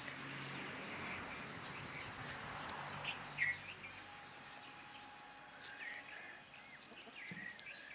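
Outdoor nature ambience: a steady high-pitched insect buzz, with short bird chirps about three and a half seconds in and again, more often, near the end.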